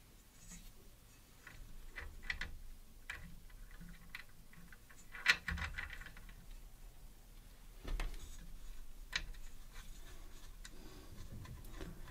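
Small metal hardware handled by hand: scattered light clicks and taps as bolts, spacers and shims are fitted to a CNC carriage plate, with one sharper click about five seconds in.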